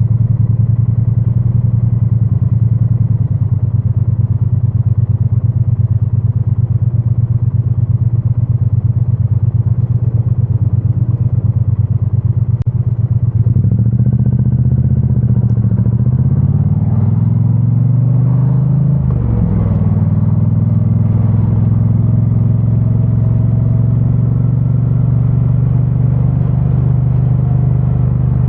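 2022 Triumph Bonneville T100 with its parallel-twin engine and stock exhaust, running steadily at a low note, then rising in pitch as the bike accelerates. There is a brief dip about two-thirds of the way through as it changes gear, then it holds a steady note. The sound is picked up from the rider's backpack.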